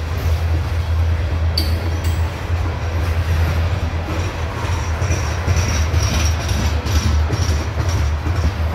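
Loaded coal hopper cars of a long CSX coal train rolling past with a steady, loud low rumble of wheels on rail. A faint high-pitched wheel squeal joins about halfway through.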